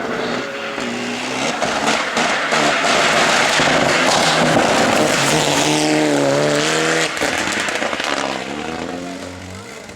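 Rally car passing at speed, its engine revving hard with the revs dropping and climbing again through gear changes. It is loudest in the middle, then fades away near the end.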